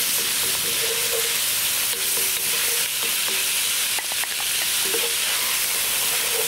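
Diced ham and mushrooms sizzling hard in oil in a cast iron Dutch oven over a high gas flame, stirred and scraped with a wooden spoon.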